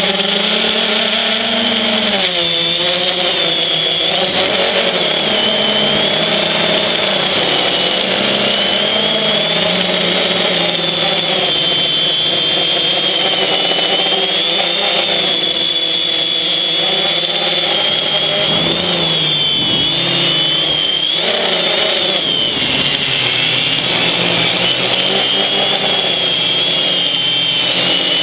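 FPV quadcopter's electric motors and propellers whining in flight, heard from a camera mounted on the copter. The pitch rises and falls continually as it is flown hard.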